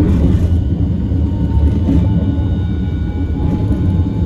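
Hiroshima Electric Railway 1000 class Green mover LEX low-floor tram pulling away: a loud low rumble of the running tram with a faint steady electric whine, and a brief clatter at the start.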